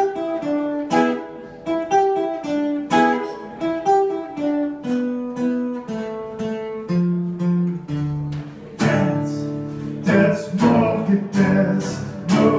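Solo guitar playing an instrumental passage: a riff of single picked notes that steps downward in pitch, then louder strummed chords from about nine seconds in.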